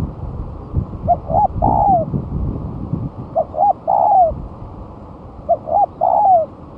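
Spotted dove cooing its song: two short notes followed by a longer, falling coo, repeated three times about two seconds apart. Low rumbling noise runs under the first two phrases.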